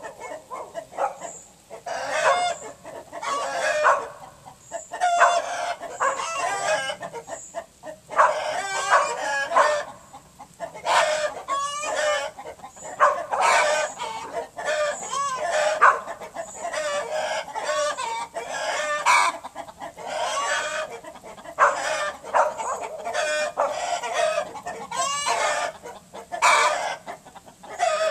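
Chickens in a backyard flock calling almost without pause, one call after another with only short breaks.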